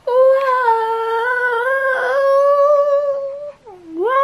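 A woman humming one long, high, mostly level note. Near the end the pitch sags and rises back, and the humming carries on.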